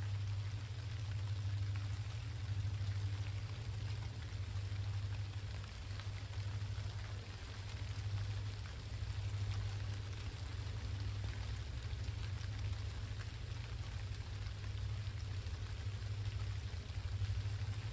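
Steady rain falling, an even hiss with scattered drop ticks, over a steady low rumble.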